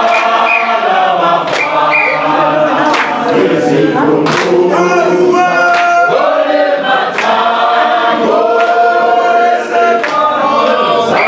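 A group of people singing together in chorus, with hand claps at intervals.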